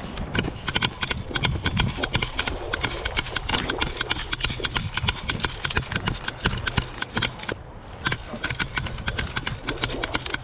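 Footsteps of a player moving quickly over rough outdoor ground, several crunching steps a second, with a short pause about seven and a half seconds in.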